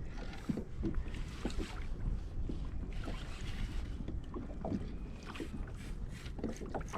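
Water lapping and slapping against a small boat's hull, with scattered light knocks and a low rumble of wind on the microphone.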